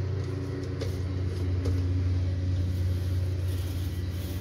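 A paint roller rolling primer over an RV wall panel, soft rubbing strokes that grow clearer near the end, under a steady low hum.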